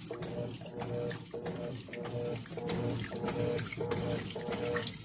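Electrolux Turbo Economia top-loading washing machine agitating in the rinse: its motor hum and water sloshing in the tub, the agitator stroking back and forth about twice a second.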